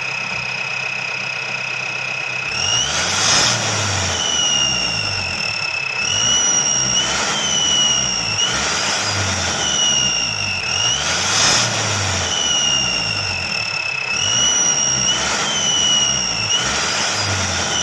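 Mahindra Bolero's diesel engine idling and revved about six times, with an aftermarket turbo-whistle gadget fitted. It gives a steady high whistle at idle that jumps up with each rev and slides back down in pitch as the revs drop, imitating a turbocharger's whistle.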